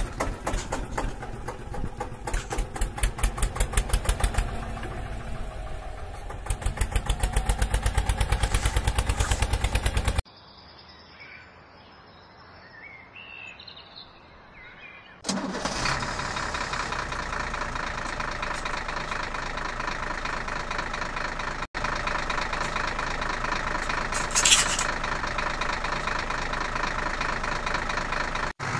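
Added engine sound effects. A chugging engine pulses rapidly and cuts off abruptly about ten seconds in. A few seconds of faint background follow, then a steady running engine starts suddenly about fifteen seconds in, with a short sharp noise partway through.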